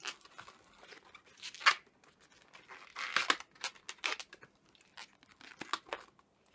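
Inflated latex twisting balloons squeaking and rubbing against each other and the fingers as the end is knotted by hand. The sound comes in irregular short bursts, loudest about a second and a half in and around three seconds in.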